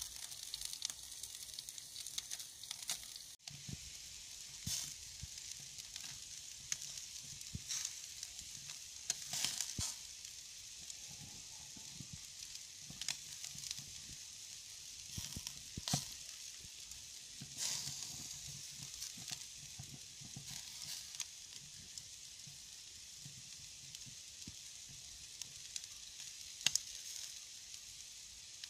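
Skewered meat sizzling over wood embers in a wire grill basket: a steady high hiss with scattered sharp pops and crackles. The sound breaks off for an instant a few seconds in.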